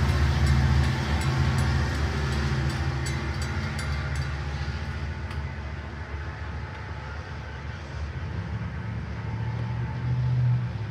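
Long Island Rail Road diesel locomotive and train running away over a grade crossing, the low engine rumble fading steadily as it recedes. There are sharp clicks in the first few seconds. A low engine hum swells briefly near the end.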